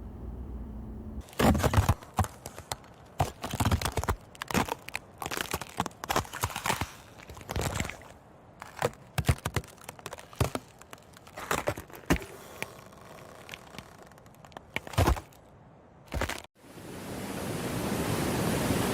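Ice breaking: an irregular series of sharp cracks and crunches, some loud and some faint, for about fifteen seconds. Near the end they stop and a steady rushing waterfall swells in.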